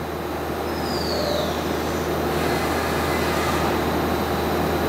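Steady machine-shop background noise with a low hum underneath, and a faint falling whistle about a second in.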